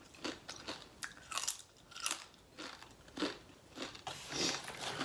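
A person chewing a mouthful of Chipotle bowl food, with a string of short wet mouth clicks about twice a second.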